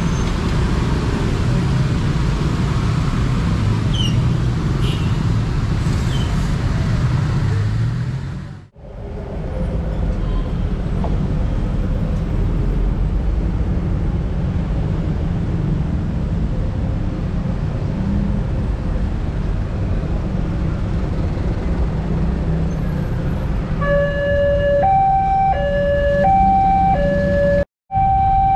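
Motorcycle and car traffic running across a level crossing, a steady mix of small engines and tyres. About 24 s in, the crossing's electronic warning alarm starts, alternating between two tones: the signal that a train is approaching and the barrier is about to close.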